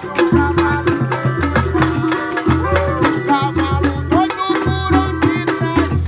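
Background music with drums and percussion over a steady, repeating bass beat.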